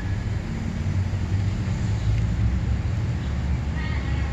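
Steady low rumble of a motor vehicle engine running, with a few faint high chirps near the end.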